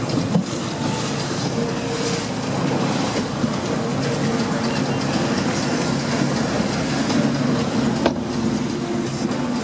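Small boat's engine running steadily under way, with water rushing along the hull.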